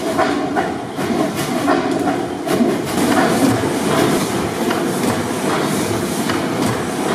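600 HP Snow pipeline compressor engine, a large four-stroke gas engine with double-acting cylinders, running: a loud, steady mechanical clatter with repeated knocks.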